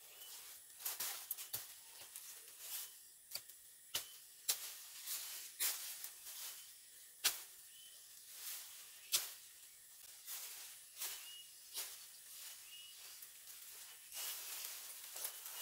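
Machete chopping and snapping through dry grass stems, heard as irregular sharp cracks with the rustle of dry brush between them. Near the end the rustling thickens as the brush is pushed through and trampled.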